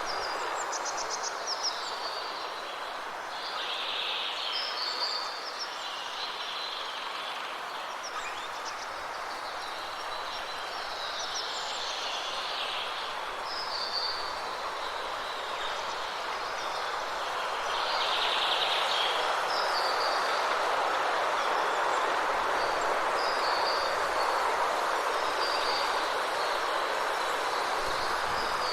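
Songbirds chirping and singing in short repeated phrases every few seconds, over a steady rushing background noise that grows louder about two-thirds of the way through.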